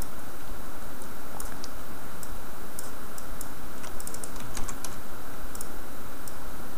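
Scattered light clicks of a computer keyboard and mouse, irregular and thickest a few seconds in, over a steady background hiss.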